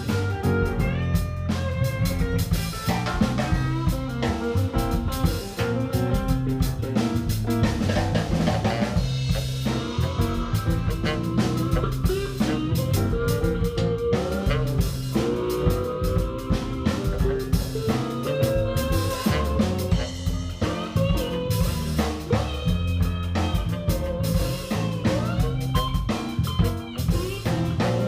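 Blues jam with no vocals: guitar playing over a steady drum kit beat, with notes bent up and down.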